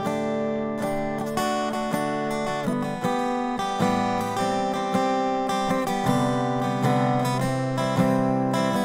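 Background music: a solo acoustic guitar instrumental, strummed and picked chords at a steady, unhurried pace.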